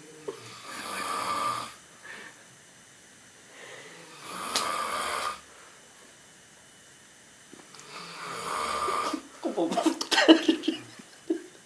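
A sleeping person snoring, with three drawn-out snoring breaths about every four seconds. Near the end comes a louder, choppier, rattling snore.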